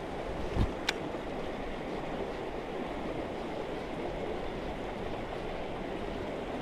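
Mountain stream water rushing steadily, with a brief low knock and a sharp click just under a second in.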